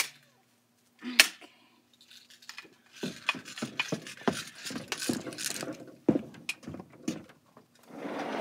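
Handling noise from hands tying off the string wrapped around a stick handle. A couple of sharp clicks come first, then a dense stretch of scraping and rustling from about three seconds in, and another burst near the end.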